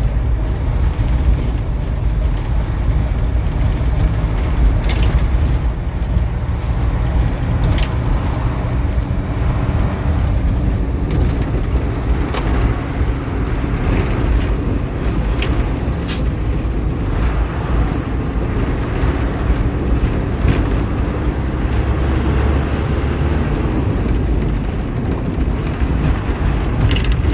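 A motor vehicle running with a steady heavy low rumble, with a few sharp clicks and knocks scattered through it.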